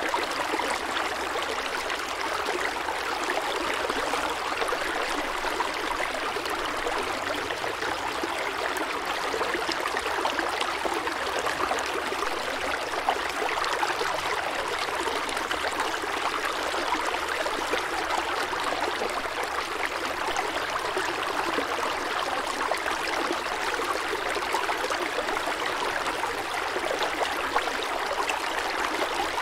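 Steady rushing water with an even hiss and no clear surges.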